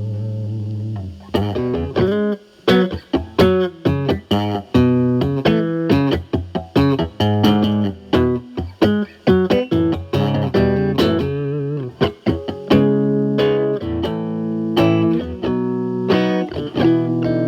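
Electric guitar (Telecaster) driven through a Fender Pugilist distortion pedal into a Marshall Valvestate amp's clean channel, the pedal in blend mode on its Gain A side only, gain around 10–11 o'clock. A held note with vibrato gives way to quick picked single-note lines, ending on held notes with vibrato.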